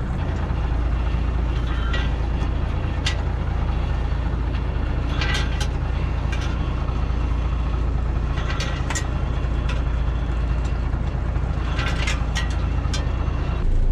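A small fishing boat's engine running steadily under way while longline gear is being set. Short clicks and rattles come every few seconds from the gear.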